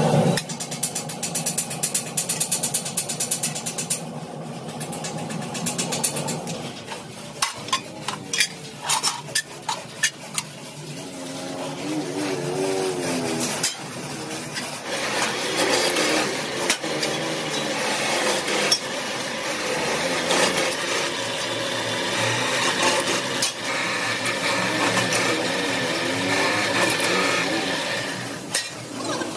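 Metalworking shop machinery running steadily, with a run of sharp metal knocks and clanks as steel plate is handled, about a third of the way in.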